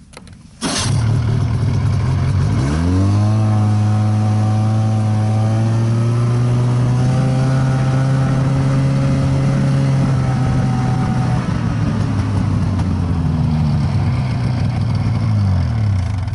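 Snowmobile engine that comes in suddenly about a second in, rises in pitch as it pulls away, then runs at a steady speed. It eases off and drops in pitch near the end.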